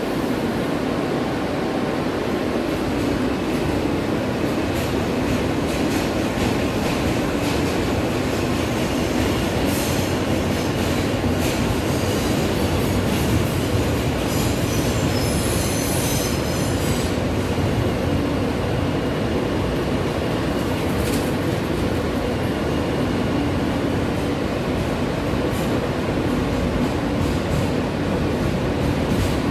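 New York City subway car (F train) in motion, heard from inside the car: a steady rumble and hum of wheels and motors with scattered clicks over the rail joints, and a high-pitched wheel squeal for a couple of seconds about halfway through.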